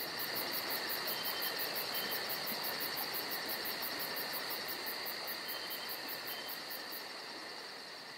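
Steady outdoor ambience: an even hiss with a continuous high whine and a fast, regular high-pitched pulsing at about four a second, fading slightly near the end.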